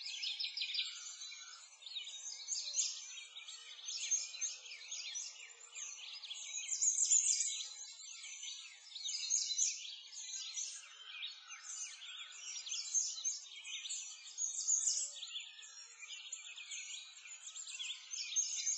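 Dense chorus of many small birds chirping and trilling, all high-pitched with no low sounds, swelling and fading in waves.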